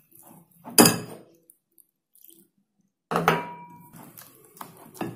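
Kitchenware knocking against a glass mixing bowl twice, a sharp clink about a second in and another about three seconds in that rings briefly, followed by quieter scraping of a silicone spatula in thick cocoa batter.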